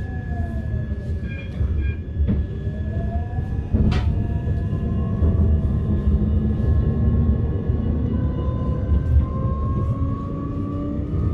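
Inside a moving tram: the low rumble of the car running on the rails, with the electric traction motors' whine falling in pitch, rising again about four seconds in, and climbing slowly near the end. A few sharp clicks from the wheels on the track.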